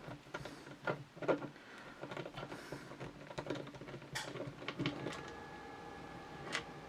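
Small clicks, taps and scrapes of a screwdriver working a screw out of a Berthier rifle's stock, metal against wood and metal, irregular and light. A faint steady hum comes in about five seconds in.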